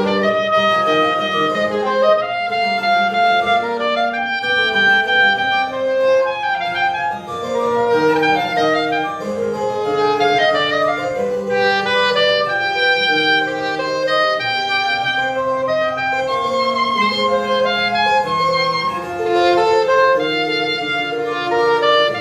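Soprano saxophone playing a solo melody of many quickly changing notes, phrase after phrase without a break.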